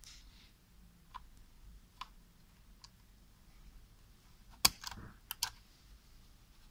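Handling clicks of the SATA SSD and its mounting parts inside a Lenovo ThinkCentre M910q tiny PC as the drive is worked loose: a few faint ticks, then a louder sharp click about halfway through, followed by two quick clicks.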